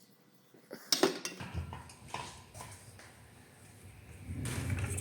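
A few sharp metallic clinks and knocks of tools or parts being handled, over a low rumble that starts about a second and a half in and grows louder near the end.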